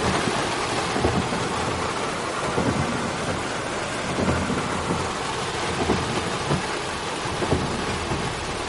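Heavy rain pelting a car's windshield and roof, heard from inside the moving car: a dense, steady hiss with scattered louder drop hits.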